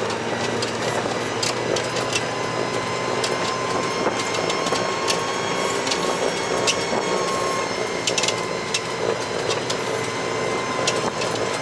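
The 'Veter' articulated all-terrain vehicle driving through deep snow in fourth gear low range, heard from inside its cab: a steady engine and drivetrain drone with a thin steady whine, and scattered sharp rattling clicks.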